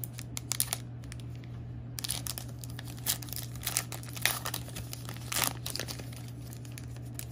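Plastic trading card pack wrapper crinkling and tearing as it is pulled open and handled, in irregular crackles, over a steady low hum.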